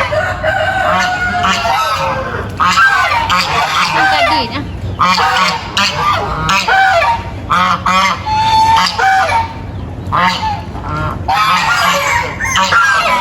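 Farm animals calling over one another in a dense chorus of many short, overlapping calls with barely a gap between them.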